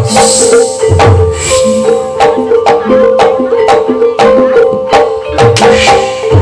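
Live gamelan accompaniment for an ebeg dance: struck metallophone tones at an even, fast beat over low drum strokes, with a cymbal-like splash at the start and another near the end.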